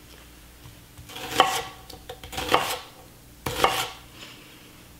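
Chef's knife chopping an onion on a wooden cutting board: three short runs of knife strikes, about a second apart.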